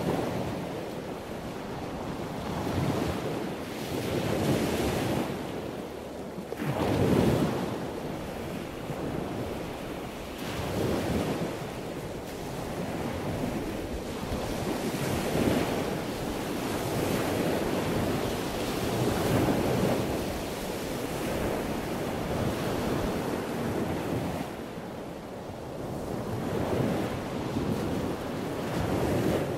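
Sea waves washing, surging and easing every few seconds, with wind buffeting the microphone.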